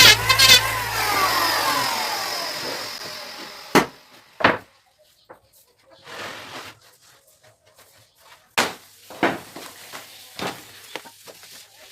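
Background music fades out over the first few seconds. It is followed by a handful of separate sharp knocks and taps and a short rustle, from wood being worked or handled.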